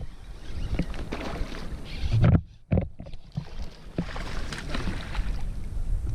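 Fishing kayak on the water: water moving against the hull with scattered light knocks and a low rumble.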